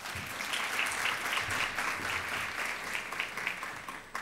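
Audience applauding a speaker's welcome, many hands clapping together, fading out at the end.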